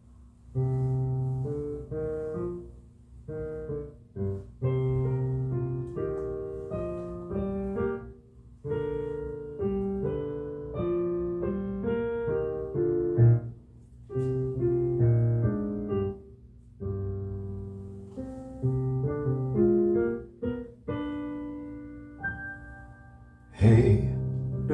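Piano playing the accompaniment introduction to a musical-theatre song, in chords with short gaps between phrases. About a second before the end a louder, fuller sound comes in.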